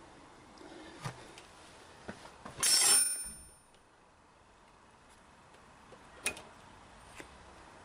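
Metal parts or tools clinking as they are handled. Several light clicks, then one loud metallic clatter with a brief ringing about three seconds in, and two sharper clicks near the end.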